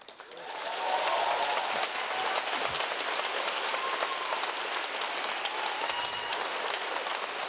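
Large theatre audience applauding, swelling within the first second and then holding steady.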